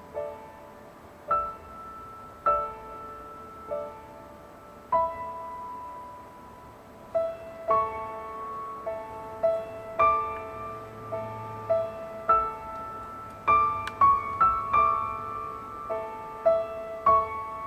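Background piano music: notes and chords struck and left to ring, sparse at first and busier from about halfway through.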